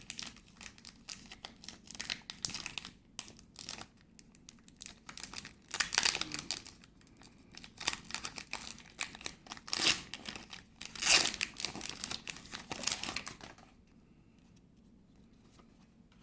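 Pokémon card booster pack's foil wrapper crinkling and being torn open by hand, in irregular bursts of crackle, dying down near the end.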